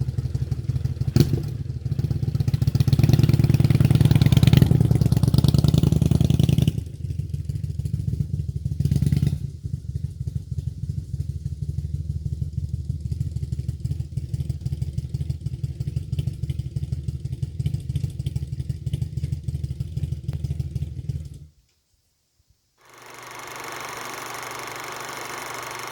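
Kawasaki VN800's V-twin engine running: about two seconds in it runs louder for several seconds, then settles to a steady idle. It cuts off abruptly near the end, and after a moment of silence a different steady sound with held tones starts.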